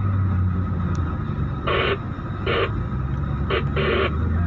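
Hino 500 FM 260 JD truck's six-cylinder diesel engine running with a steady low drone under load. Over it come several short hissy bursts of static from the two-way radio, the sound of the radio being keyed without speech.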